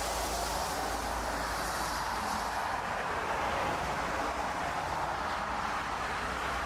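Airliner engines running as an aircraft moves past: a steady rush of noise, its high hiss thinning out about three seconds in.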